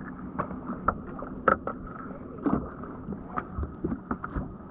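Irregular knocks and clatter on a fishing boat as a just-caught walleye is handled, over a steady low hum.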